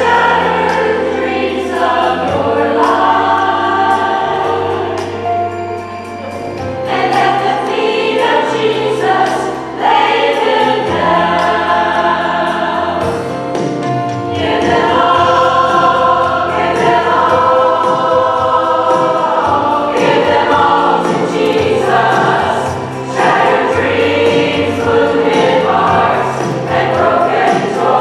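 Women's gospel ensemble singing together over held low accompaniment notes.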